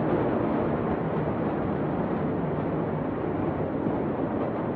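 Steady outdoor rushing noise on a phone's microphone, even and unbroken, with no distinct bangs or voices.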